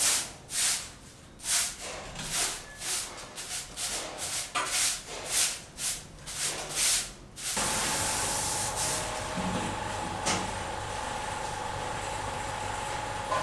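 Repeated rubbing or scraping strokes, about one and a half a second. About halfway through they give way abruptly to a steady hiss with a constant hum-like tone, like a running machine.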